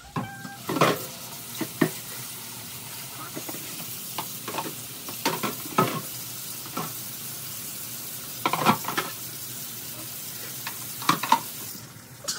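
Dishes and utensils clattering as they are washed up at a sink: a scatter of sharp knocks and clinks, over a steady hiss that stops near the end.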